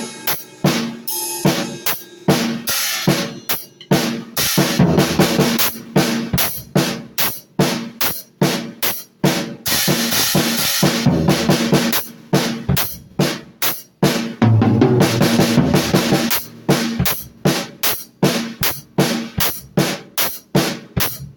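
Drum kit played with rapid, busy hits of snare, bass drum and cymbals, the cymbals washing together in stretches.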